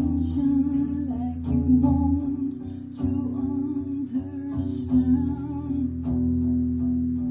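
Live acoustic song: plucked acoustic guitar under a singer's wordless, hummed vocal line, ending on one long held note.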